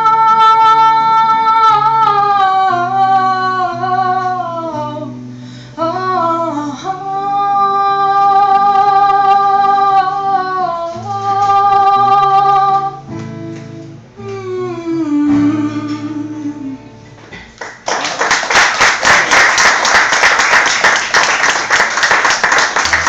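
A singing voice holds long wordless notes over acoustic guitar as the song ends, then the audience applauds from about 18 seconds in.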